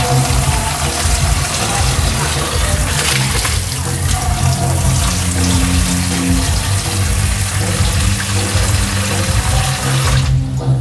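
Tap water running into a plastic bucket, a steady splashing hiss that cuts off abruptly near the end, over a low steady hum.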